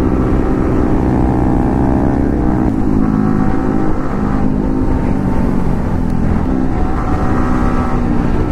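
Sport motorcycle engine running under way at road speed, its note shifting a little in pitch with the throttle, over a heavy low wind rumble on the rider's microphone.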